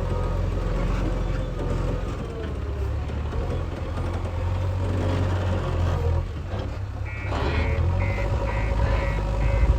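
Heavy diesel engines of earthmoving machinery running steadily. About seven seconds in, a reversing alarm starts beeping about twice a second.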